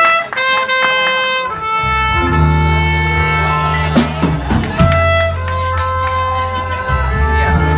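Live jazz combo: a trumpet plays a melody line alone, then electric bass guitar and drum kit come in under it about two seconds in.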